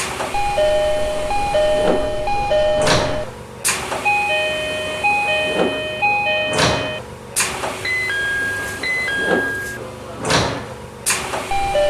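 Train door chimes edited onto the door sounds of a Keio 8000 series train: a two-note falling chime repeats three times, then the sliding doors move with a rush of noise and shut with a sharp thump. This happens three times; the third chime is a different, higher two-note pattern. A steady hum of the train runs beneath.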